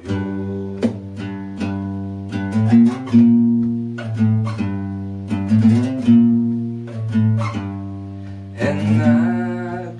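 A single-string acoustic guitar plucked note by note, about two notes a second, each note ringing and fading before the next.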